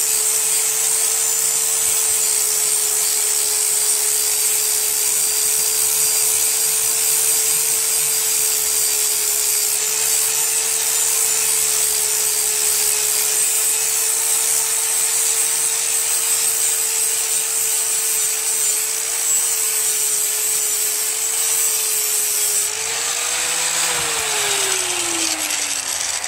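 Angle grinder sharpening the cutting edge of a steel lawn-tractor mower blade: a steady motor whine under a harsh grinding hiss. Near the end the grinding stops, the whine rises briefly as the load comes off, then the grinder is switched off and winds down with a falling whine.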